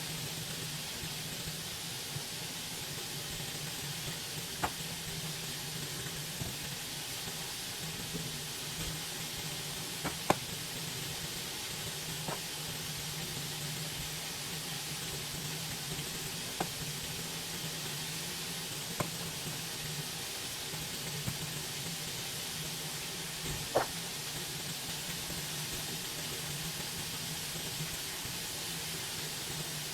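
Meat sizzling in a frying pan: a steady sizzle with a low hum under it, broken by a few sharp pops or clicks, the loudest about ten seconds in and about two-thirds through.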